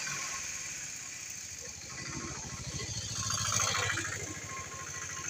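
A small motor vehicle's engine running off-screen, growing louder to a peak about three and a half seconds in and then fading, as a vehicle passing by.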